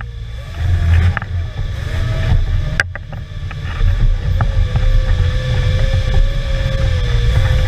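Off-road trial vehicle's engine running hard, heard from inside the cabin, easing off near the start and again around 3 seconds before picking up again. Sharp knocks from the body and chassis about a second in and near 3 seconds, with a wavering whine running through the second half.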